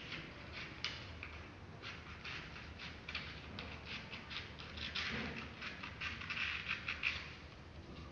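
Scissors snipping through paper in quick repeated cuts, with the paper rustling as it is handled.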